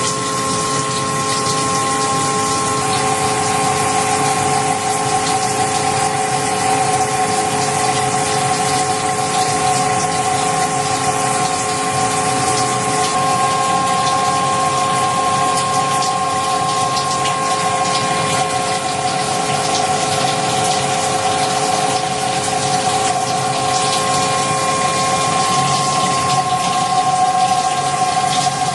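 Emco Turn 220 CNC lathe running: a steady machine whine of several tones that shifts in pitch about three seconds in, over a continuous rushing noise.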